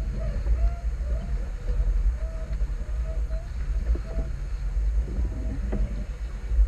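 Wind buffeting the camera's microphone and water rushing past the hull of a small sailboat under way in a fresh breeze, a steady heavy rumble. Short faint squeaks come through now and then.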